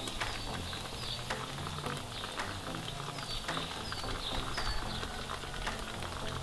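Small birds chirping over and over in short, falling chirps, with light clicks of forks against a stainless steel tray.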